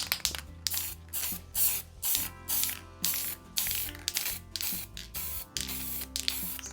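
Aerosol spray can of gloss black epoxy enamel paint (Rust Coat) hissing in short repeated bursts, about two a second, as paint is sprayed onto a metal bird bath.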